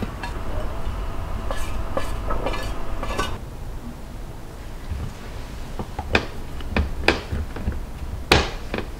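Chopsticks scraping a stir-fried dish off a stainless steel tray into a glass bowl, with dense metallic scraping and clinking for about three seconds. Then come a few sharp clicks as a lid is fitted and pressed onto the glass bowl, the loudest near the end.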